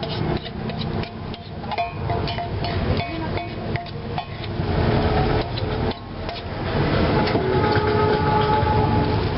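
Metal spoon clinking and scraping against a nonstick frying pan while instant noodles are stirred in hot oil, with many irregular knocks.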